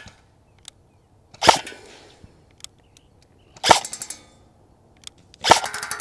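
Arcturus AK-12 airsoft electric rifle (AEG) firing three times, about two seconds apart. Each shot is a sharp crack from the gearbox cycling, with a short rattling tail.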